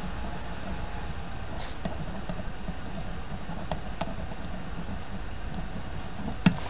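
Pen writing on squared paper: faint scratches and small ticks of the strokes over a steady background hiss, with one sharp click near the end.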